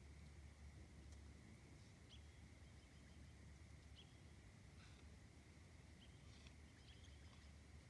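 Near silence: quiet outdoor ambience with a low rumble and a few faint, short chirps scattered through it.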